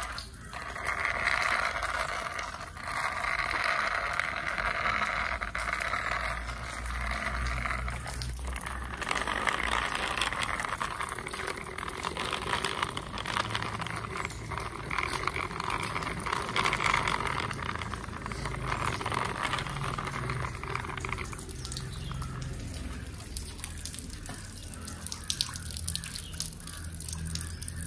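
Plastic toy vehicle wheels rolling and grinding along a wet, rough concrete ledge, pushed by hand in several runs of a few seconds with short breaks between; quieter after about 21 seconds.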